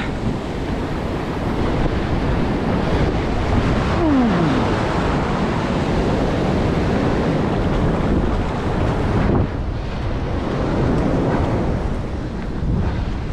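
Ocean surf breaking and washing over the sand, with wind buffeting the microphone.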